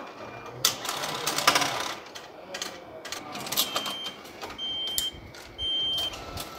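A Japanese railway ticket machine recharging an IC card: a banknote is drawn into the note slot with a whirring mechanical feed and clicks, then the machine sounds a short high beep about once a second while it counts out change notes.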